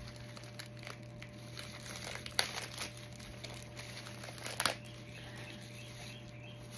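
Cardboard and plastic packaging of a Funko Pop vinyl figure crinkling and crackling as it is handled, with two sharper clicks about two and a half and four and a half seconds in.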